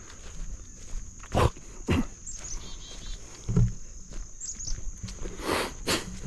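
Footsteps through overgrown marsh vegetation: a handful of irregular steps and brushing sounds.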